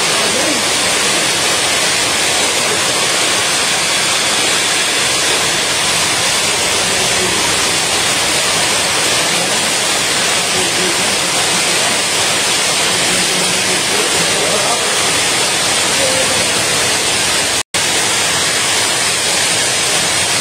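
Heavy rain pouring down in a steady, even hiss, with water streaming off the edge of a corrugated roof. The sound cuts out for an instant about three seconds before the end.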